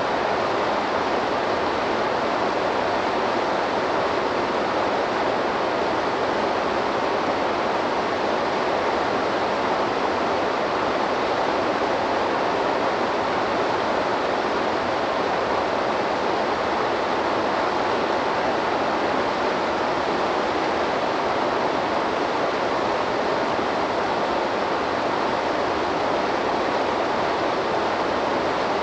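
Waterfall pouring into a river, a steady, even rush of falling water.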